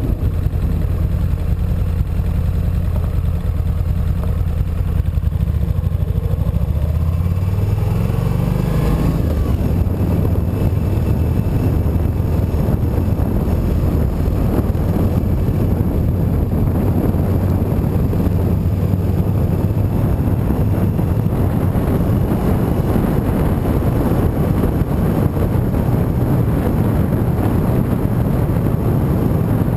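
Motorcycle engine running low and steady, then revving up with rising pitch about seven to nine seconds in as the bike accelerates away. It then settles into steady riding, with engine hum under the rush of wind over the microphone.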